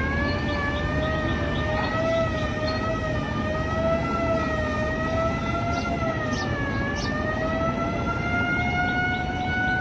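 Quadcopter drone's motors and propellers whining, the pitch drifting slowly up and down with throttle and dipping briefly about two-thirds of the way through before rising again, over a steady rushing noise.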